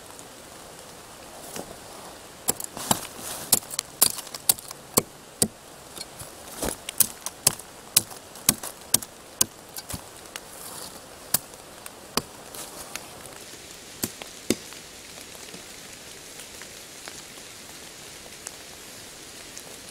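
Dead twigs and small branches snapping and cracking as they are cleared from under a fallen log: irregular sharp cracks, thick at first and thinning out after about fifteen seconds.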